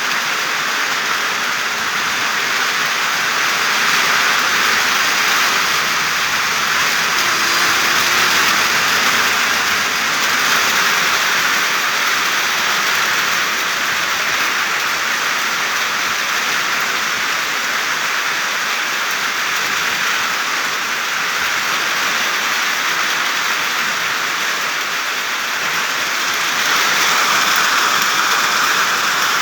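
Steady rain falling on plant leaves: a dense, even patter of raindrops.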